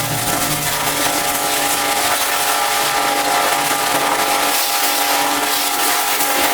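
High-pressure washer running steadily, its jet hissing against the truck's surfaces over the steady whine of its motor and pump.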